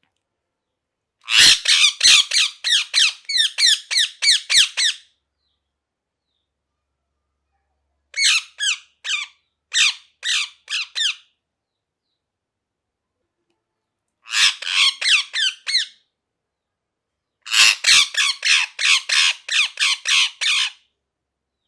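Ringneck parakeet screeching in four bouts of rapid, harsh repeated calls, about three a second, with silent gaps between the bouts.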